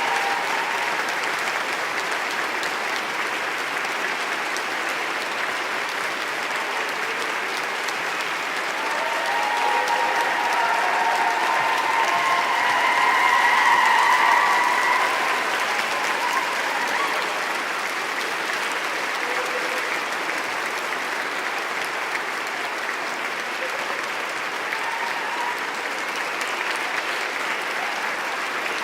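A crowd applauding steadily, a dense wash of clapping that swells louder about halfway through, then settles back.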